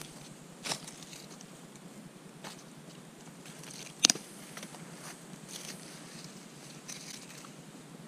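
Small wood campfire crackling, with a few scattered sharp pops; the loudest, a single crisp pop, comes about four seconds in.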